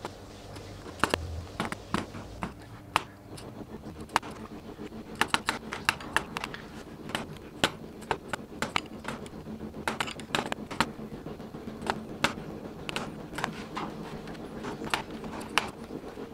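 Hand chisel paring and scraping wood from a wooden bike frame around the bottom bracket: a run of quick, irregular sharp scrapes and clicks.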